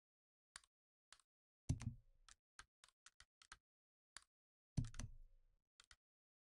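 Computer mouse and keyboard clicks: scattered single light clicks, with two heavier knocking key or button presses, one a little under two seconds in and one near five seconds in.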